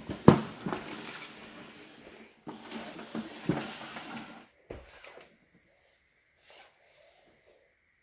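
A cardboard toy box slid and scraped across a wooden floor in two stretches with a few sharp clicks, then a single knock about five seconds in as it is let go.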